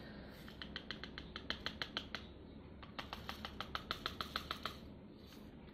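Square resin diamond-painting drills poured from their bag into a plastic drill tray, with small, faint clicks as they land. The clicks come in two runs of several a second, with a short pause in between.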